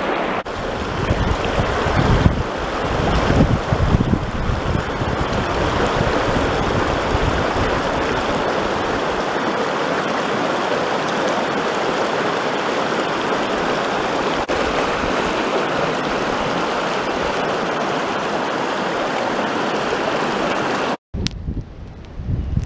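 Shallow stony river rushing over a small rapid, a steady wash of water, with wind buffeting the microphone in the first few seconds. Near the end it cuts off abruptly to a much quieter background.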